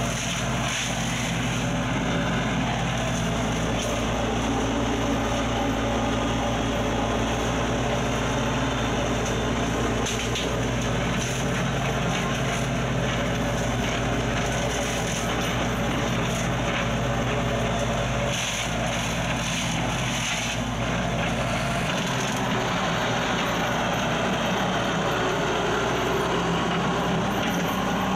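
Kubota U-40 mini excavator's diesel engine running steadily at working throttle, driving a hydraulic flail mower attachment that shreds tangled vines and brush, a continuous mix of engine drone and whirring, chopping noise.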